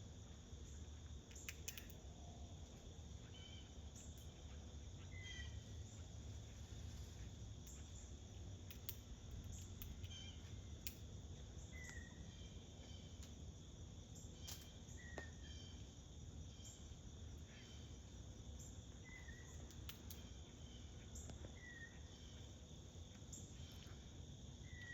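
Squirrel alarm calls: short, faint, high call notes repeated every second or few seconds, over a steady insect drone. The calls are the alarm squirrels give when a predator, taken for a hawk, is around.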